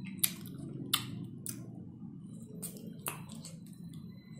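Mouth sounds of eating an ice cream bar up close: several sharp wet smacks and sucking noises from lips and tongue, over a low steady hum.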